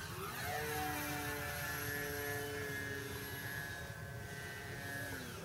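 Multiplex FunCub RC plane's brushless electric motor and propeller whining at high throttle. The pitch rises about half a second in as it climbs, holds steady, then drops near the end as the throttle comes back.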